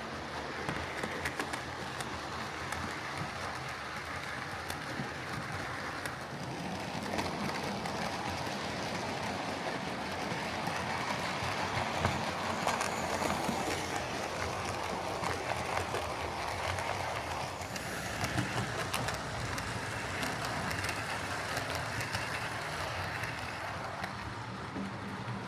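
OO-gauge Oxford Rail Dean Goods model locomotive running on track: a steady whirr of its electric motor and gears with wheels rolling and clicking on the rails, growing louder and softer by turns.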